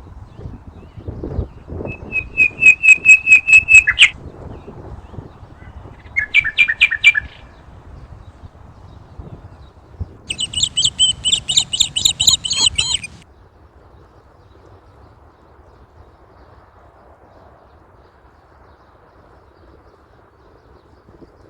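A bird singing three bursts of fast, evenly repeated chirping notes, each a second or more long, over a low rumble of background noise. After the third burst the song stops and only a faint steady hiss remains.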